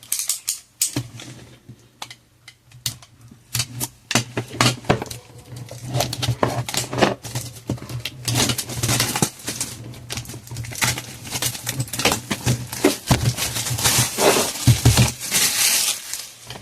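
Plastic shrink wrap being picked at, torn and peeled off a cardboard box by hand: many irregular clicks and scratches of fingernails on plastic, with spells of crinkling as the film comes away.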